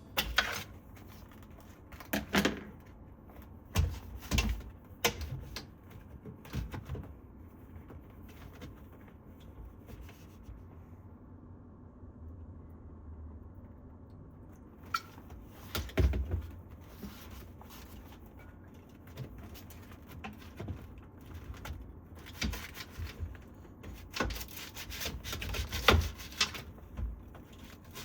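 Scattered knocks, clicks and light clatters of household items being handled and set down, with quieter gaps between; a few louder knocks about 16 s and 26 s in.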